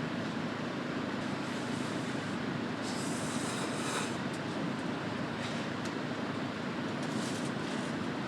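Steady rushing noise with a few brief rustles over it.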